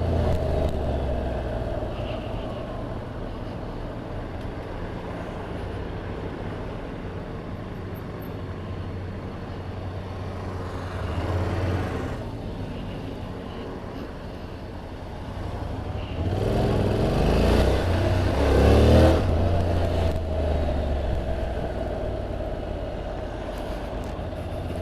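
Honda NC750X motorcycle engine running steadily as it is ridden in traffic. The engine note rises and falls, louder for a few seconds about two-thirds of the way through.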